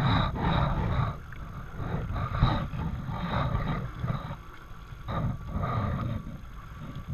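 Wind and spray buffeting an action camera's microphone on a moving jet ski, an uneven rushing noise that surges and drops every second or so, with the jet ski's running engine beneath.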